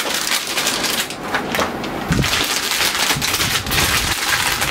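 Packaging being handled and crinkled while a motherboard is unboxed: a dense, irregular run of crackles and small clicks, with a few soft thumps about two seconds in.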